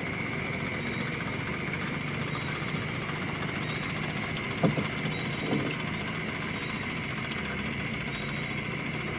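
Small boat engine idling steadily, with one sharp knock about halfway through.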